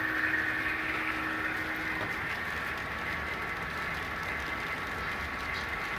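HO scale model passenger train running along the layout track: a steady whirring of the locomotive drive and wheels on the rails, with a faint high tone.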